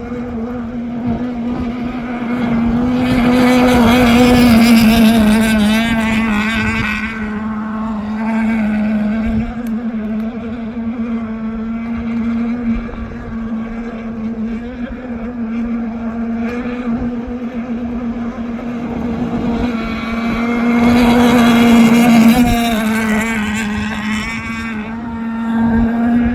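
Radio-controlled boat's motor running at speed, a steady pitched drone that swells louder twice as the boat passes close, about four seconds in and again around twenty-one seconds.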